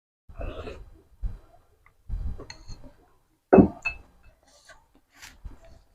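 A person eating seblak (rice vermicelli, crackers and cabbage in broth) close to the microphone: a series of short mouth noises from slurping and chewing, the loudest about three and a half seconds in.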